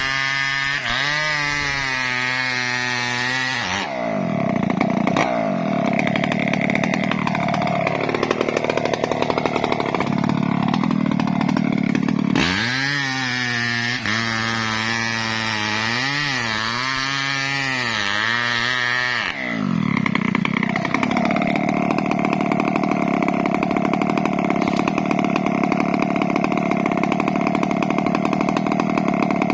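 Chainsaw working through mahogany wood. The engine is revved up and down at the start and again midway, and settles into a steady high-speed run with cutting noise from about 4 to 12 seconds and from about 19 seconds to the end.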